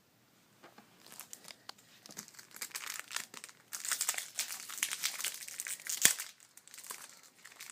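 Foil trading-card pack wrapper crinkling and tearing as it is opened by hand, with a sharp click about six seconds in.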